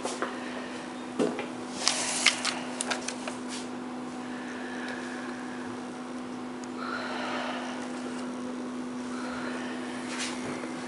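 Room tone with a steady low hum, and a few sharp clicks and rustles in the first three seconds or so.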